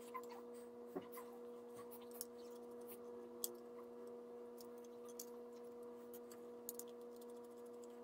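Faint, scattered small clicks and ticks as screws are taken out of the metal tray of a 2.5-inch laptop hard drive with a screwdriver, over a steady low hum.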